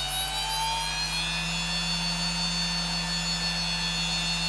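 Hitachi DK32CJ-36MC 10,000 rpm SCSI hard drive spinning up: the spindle motor's whine rises in pitch and levels off at full speed about a second and a half in, then holds steady. The drive's spindle bearings are well worn, though the drive is still healthy.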